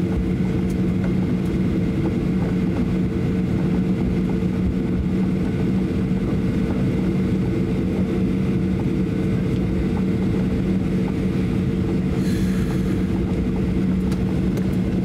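Cabin noise inside a Boeing 737-800 taxiing: a steady drone with a low hum from the engines and air systems, with faint ticks and rattles and a brief hiss about twelve seconds in.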